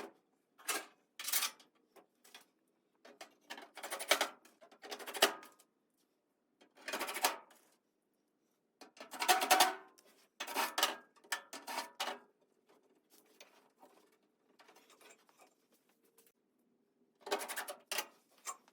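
Sheet-metal floor pan being handled and fitted into place: a series of short metallic scraping and clattering noises with pauses between, over a faint steady hum.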